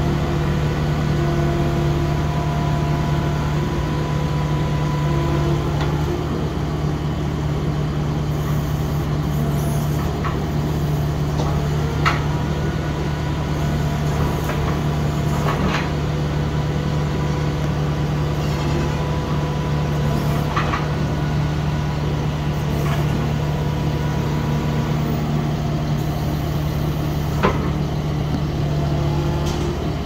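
Kubota SVL75-2 compact track loader's diesel engine running steadily with a low drone while the machine works. A few sharp knocks cut through it, the loudest about twelve seconds in and near the end.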